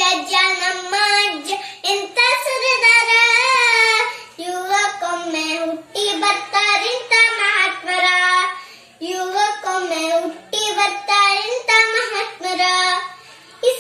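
A young boy singing solo, unaccompanied, in short melodic phrases with brief pauses for breath between them.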